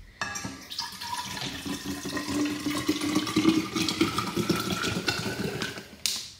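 Water running into a water bottle, its pitch slowly rising as the bottle fills; the flow stops near the end.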